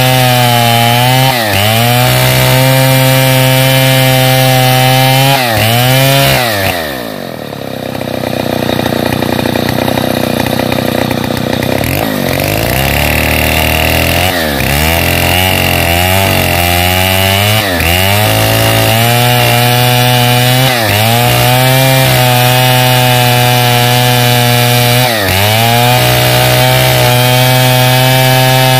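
Stihl 070 chainsaw's large two-stroke engine at full throttle, rip-cutting lengthwise along a pine log, its pitch dipping briefly now and then under load. About seven seconds in, the engine drops to idle for several seconds, then revs back up and carries on cutting.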